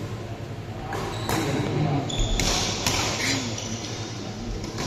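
Badminton play in an indoor hall: a few sharp racket hits on the shuttlecock between about one and three seconds in, with two brief high squeaks like shoes on the court floor, over a murmur of voices in the hall.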